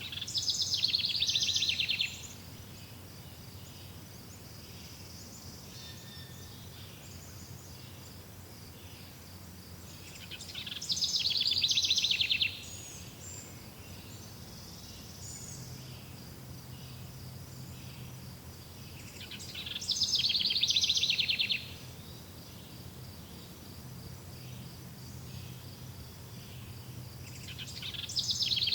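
A songbird repeating a loud, rapid trilled song, each phrase about two seconds long, swelling and then cutting off sharply, about once every nine seconds. Between phrases a steady high insect-like whine and softer bird chirps go on.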